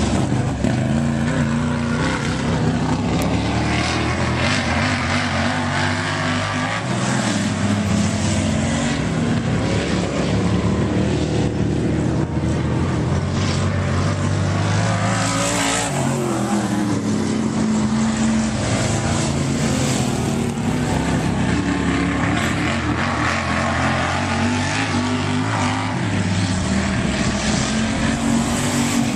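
Dirt-track race car engines running hard laps, the engine note climbing on the straights and dropping as they back off into the turns, over and over.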